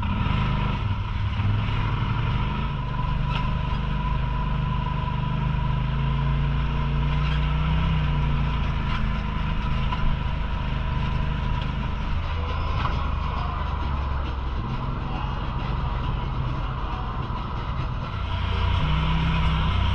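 UTV engine running steadily while the vehicle drives, a low drone with a thin steady whine over it, growing louder about three quarters of the way through.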